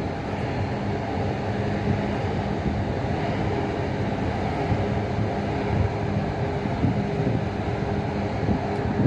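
A steady low engine hum with wind buffeting the microphone.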